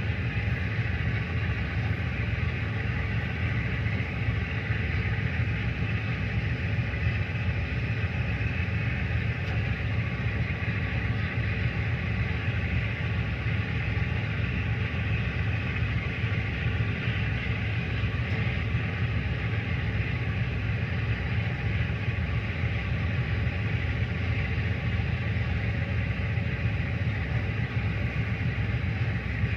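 Tugboat's diesel engine running steadily: a constant low rumble with a fine even throb.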